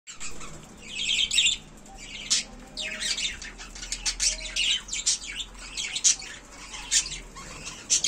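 A flock of budgerigars chattering: many short, warbling chirps and squawks overlapping one another.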